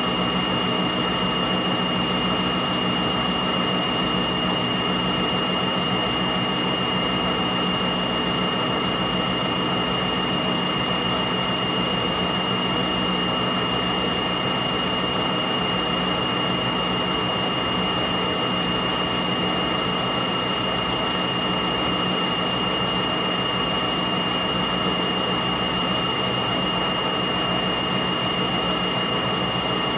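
Metal lathe running at a steady speed, a constant mechanical whine with a clear high tone that does not change.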